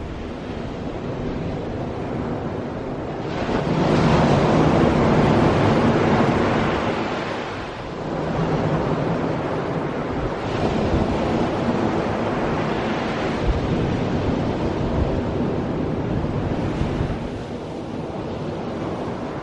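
Ocean surf washing on the shore, with strong wind buffeting the microphone. The noise swells and ebbs, loudest about four seconds in.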